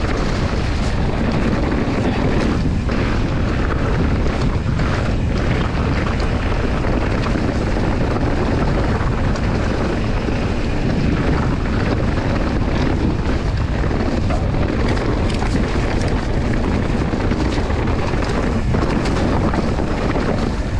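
Wind buffeting an action camera's microphone during a fast mountain-bike descent, over tyre noise and scattered knocks and rattles from the bike on rough ground.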